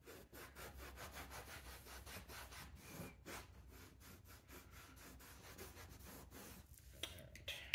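Microfiber cloth rubbing leather restorer cream into a leather car seat: faint, repeated wiping strokes of cloth on leather.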